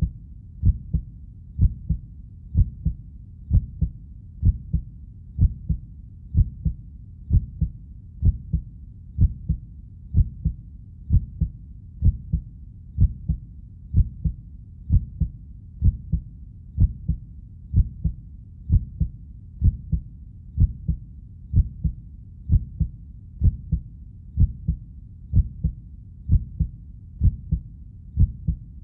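Heartbeat in a steady lub-dub rhythm: paired low thuds, about one beat a second, even throughout.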